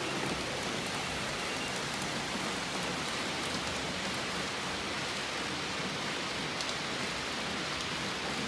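Model trains running on the layout's track: a steady rushing hiss of wheels and motors with faint, scattered light ticks.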